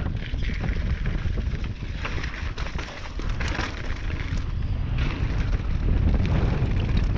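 Wind buffeting the microphone of a mountain bike rider's camera, with short knocks and rattles from the bike running over rough ground. It gets louder about five seconds in.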